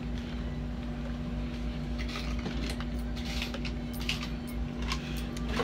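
Light clicks and rustles of cash being handled at a checkout register, over a steady low hum of store ambience.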